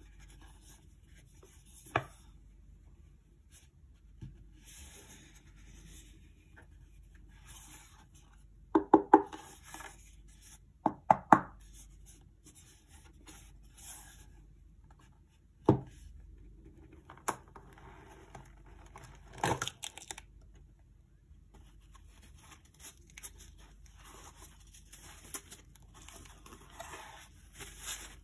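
Hands handling and opening a two-part watch presentation box: scattered knocks and taps of the box's panels, with soft rubbing and sliding of fingers and the box's fabric insert in between. The loudest are quick clusters of knocks about nine and eleven seconds in.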